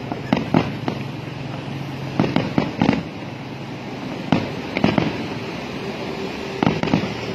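Aerial fireworks shells bursting overhead: about a dozen sharp bangs that come in quick clusters of two to four.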